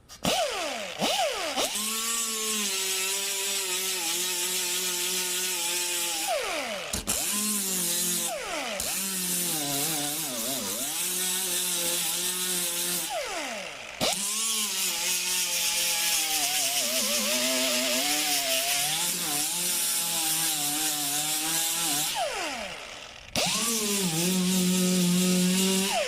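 Air angle die grinder with a 36-grit sanding disc grinding rust off a car's steel body panel. It runs in several long stretches with short breaks, a steady whine under loud hiss. The pitch falls as the disc bites in at the start of each run.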